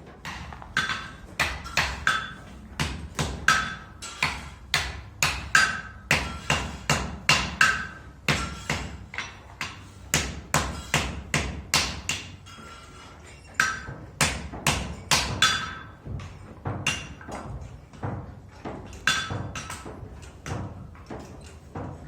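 Blacksmith's hammer striking on an anvil, a steady run of ringing blows at about two to three a second, broken by short pauses about twelve seconds in and again near the end.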